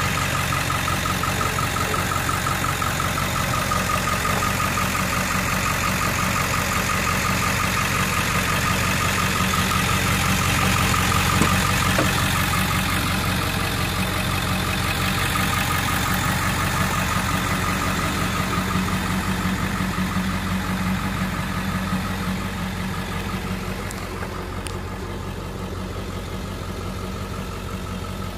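Ford 7.3L Powerstroke V8 turbo diesel idling steadily with an even diesel clatter, a little quieter in the last few seconds.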